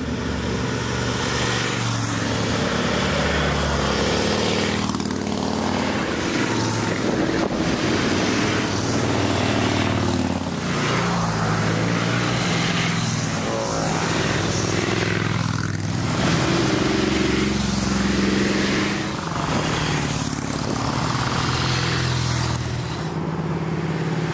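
Motorcycle engines passing one after another on a road, with a new bike going by every two to three seconds.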